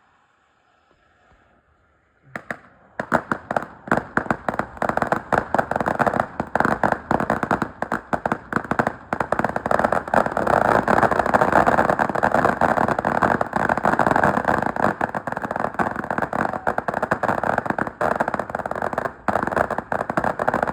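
Fireworks going off: after about two seconds of quiet, a dense, rapid crackle of pops sets in and keeps going without a break.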